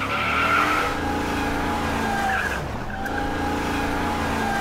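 Ford SVT F-150 Lightning pickup doing a burnout: its supercharged 5.4-liter V8 revs hard while the rear tires squeal. The revs dip sharply about two and a half seconds in, climb again, and ease off near the end.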